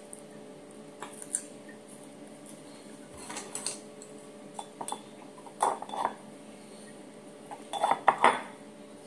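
Chopsticks clicking and clattering against a glass jar and hard surfaces in several short clusters, loudest about eight seconds in.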